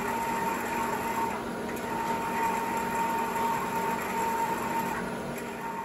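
Steady machine hum with a constant high-pitched whine over a noise bed, running without change and cutting off right at the end.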